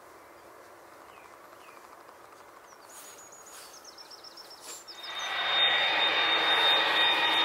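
Quiet outdoor air with a bird chirping a quick run of short notes about three seconds in; then, about five seconds in, a jet airliner's engines come in sharply and loud, a broad rushing noise with a steady high whine.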